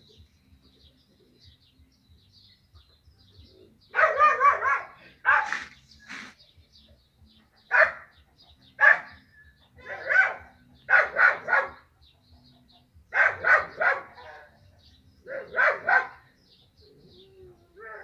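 A dog barking in repeated bouts, some as single barks and some as quick runs of two or three.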